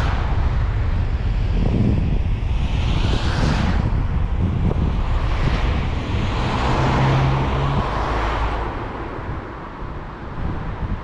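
A car driving on a road: steady tyre and wind rumble, with several vehicles swishing past one after another. The loudest pass comes about seven seconds in, with an engine hum, and then the road noise drops away.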